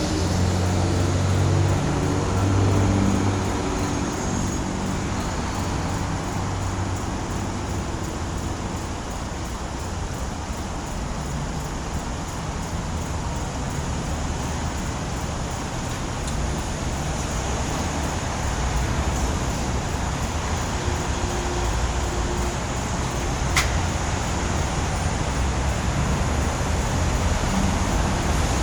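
Steady road traffic: vehicles passing with engine rumble, a deeper engine hum strongest in the first few seconds, and a single sharp click about two-thirds of the way through.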